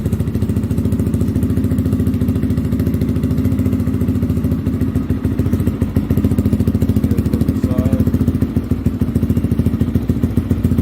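Single small motorcycle engine idling steadily through a pretty loud aftermarket slip-on muffler, its exhaust pulses rapid and even.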